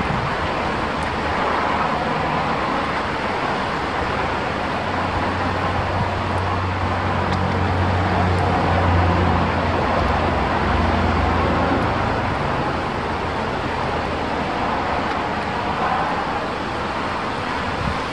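Wind rushing and buffeting the microphone as a steady hiss. A low motor drone swells about five seconds in and fades away by about twelve seconds.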